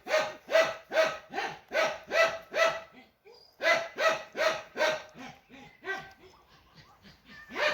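A dog barking in quick runs of about two to three barks a second, pausing briefly about three seconds in, then barking more faintly after about five seconds.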